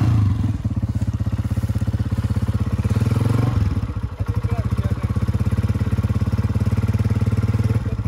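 Honda CG125's single-cylinder four-stroke engine idling with an even exhaust beat, rising briefly in revs about three seconds in and dropping back to idle.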